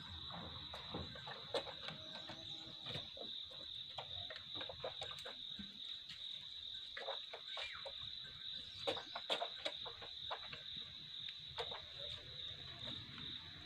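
Steady high-pitched shrilling of insects, with many scattered short clicks and wet lapping sounds from a calf drinking milk out of a plastic basin.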